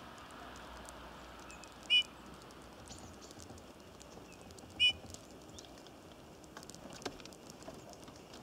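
Two short bird calls about three seconds apart, each a brief chirp, over a faint steady outdoor background; a few light clicks follow near the end.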